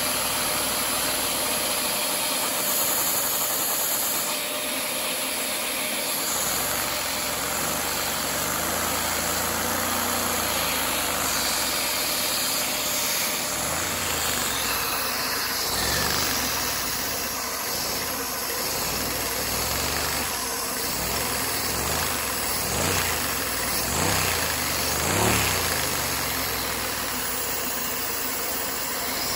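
LEGO two-cylinder boxer vacuum engine running fast, its pistons and valves clattering over a steady rushing noise. Its pitch dips and recovers several times in the second half.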